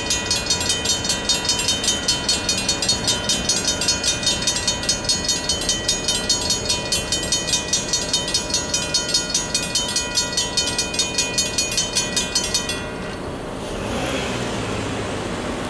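Griswold mechanical crossing bells ringing rapidly, about four to five strikes a second, while the crossing gates rise at the end of the activation. The ringing cuts off suddenly about 13 seconds in, and a car is then heard passing on the road.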